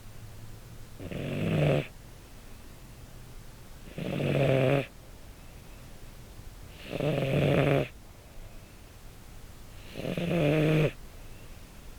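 An American Shorthair cat snoring in its sleep, picked up close by a lapel microphone: four snores about three seconds apart, each lasting under a second.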